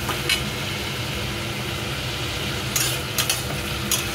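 Diced beetroot and potatoes sizzling on high flame in a stainless steel kadhai, with a few short scrapes of a metal spatula against the pan: one just after the start and a quick cluster of four near the end.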